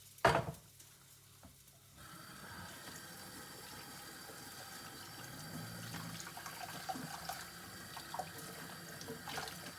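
Water running steadily from a kitchen tap into the sink, turned on about two seconds in, with a sharp knock just before it.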